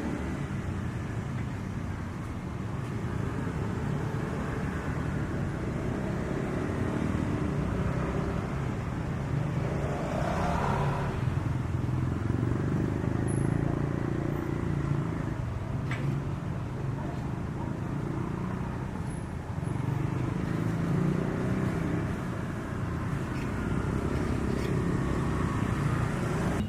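A motor engine running steadily with a low rumble that swells and eases.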